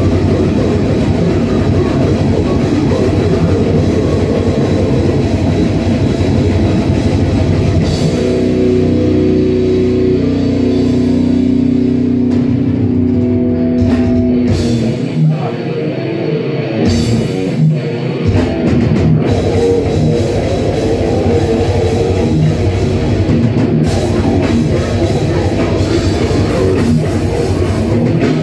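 Brutal death metal band playing live: distorted electric guitars, bass guitar and drum kit at full volume. Partway through the guitars hold long chords, then the low end drops out for a few seconds of stop-start hits before the full band comes back in.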